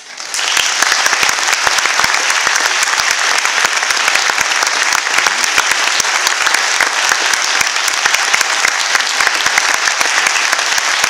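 Audience applauding: many hands clapping, breaking out suddenly and then keeping up steadily and loudly.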